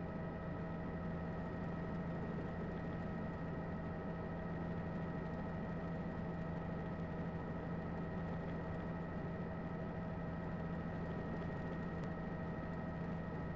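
Steady drone of a helicopter, an even hiss with several constant hum tones and no change in pitch or level.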